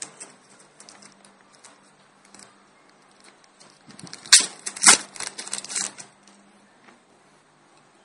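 Thin plastic wrapping crinkling and tearing as it is pulled off the phone's battery, a burst of loud crackling from about halfway through that lasts around two seconds. Light clicks of handling plastic parts before and after.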